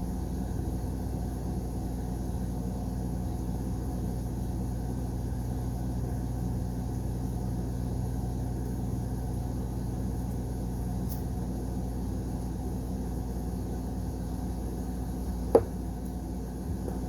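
Steady low rumbling hum with no change, and one short sharp click about fifteen seconds in.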